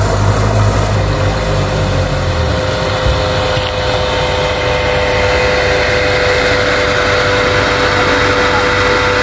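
Vehicle engines running steadily as a small off-road pickup loaded with oil palm fruit drives up on a dirt road and pulls up beside a parked dump truck. A deep rumble fades about two and a half seconds in, leaving a steady engine hum.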